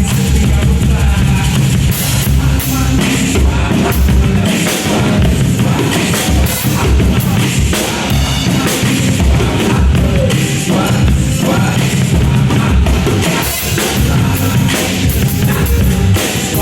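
Drum kit played along to a rock song with singing, a steady stream of drum hits over a full band backing track.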